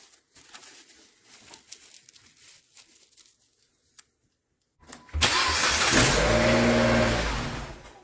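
Dodge Caliber's four-cylinder engine cranking and catching about five seconds in, then running for about three seconds before the sound drops away near the end. The starter cranks again now that the corroded starter-relay connector pins behind the no-crank fault have been repaired. Faint handling sounds come before it.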